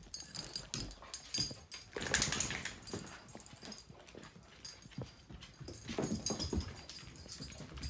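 Two dogs, a goldendoodle and a springer spaniel, scuffling and moving about on a hardwood floor: claws click and scrabble on the wood. A louder scrabbling burst comes about two seconds in and another around six seconds.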